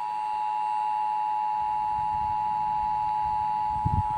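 Emergency alert attention tone: one steady, unbroken high tone sounding ahead of a severe thunderstorm warning broadcast. A few faint low thumps sit under it near the end.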